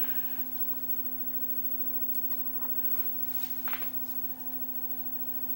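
A steady low electrical hum made of several held tones, with a faint click or two about three and a half seconds in.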